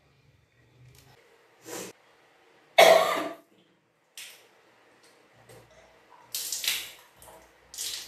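A person retching and bringing up swallowed water in several short gushes, the loudest about three seconds in: kunjal kriya, the yogic cleanse of deliberately vomiting back drunk water.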